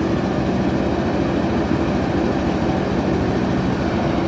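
JCB backhoe loader's diesel engine running at a steady speed, an even heavy hum.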